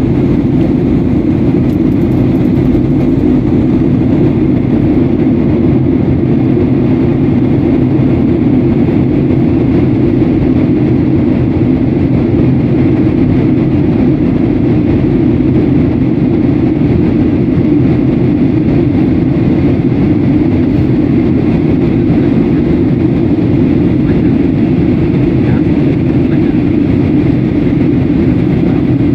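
Airbus A320-family airliner's jet engines at takeoff thrust heard inside the cabin over the wing, a loud steady rumble through the takeoff roll, liftoff and initial climb.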